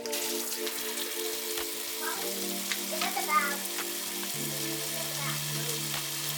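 Background music with held chords that change twice, over a steady hiss.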